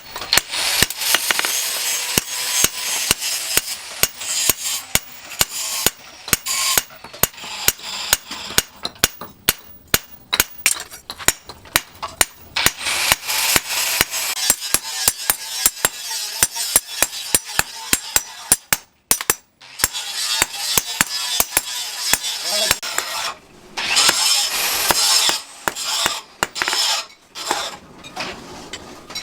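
A hammer striking steel again and again at a steady working pace, a few sharp blows a second, with stretches of rough scraping noise in places.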